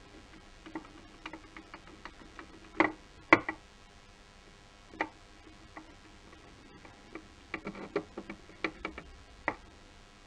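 Irregular small clicks and taps of a screwdriver working screws in the plastic and chrome steering-wheel trim that carries the shift paddles and buttons. Two louder knocks come about three seconds in, and a quick cluster of clicks comes in the second half.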